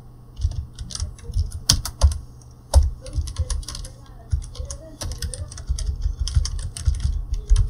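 Computer keyboard being typed on: irregular keystrokes, with a few sharper, louder key hits.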